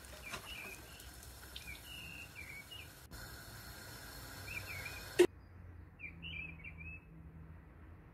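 Chicken bread rolls deep-frying in hot oil with a faint steady sizzle, under repeated short chirps of small birds. About five seconds in there is a single sharp click, and the sizzle cuts off while the chirping goes on.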